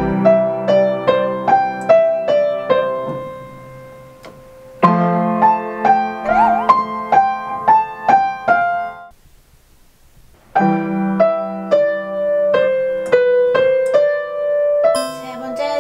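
Upright piano played haltingly: a simple melody in three short phrases that break off and start again, with a near-silent pause of about a second and a half past the middle.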